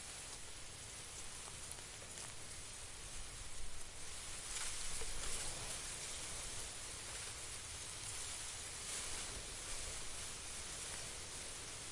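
Steady hiss-like outdoor noise with a low fluctuating rumble beneath, swelling louder for a couple of seconds about four seconds in.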